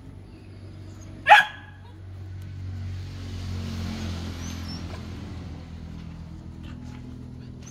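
A dog gives one short, sharp bark about a second in.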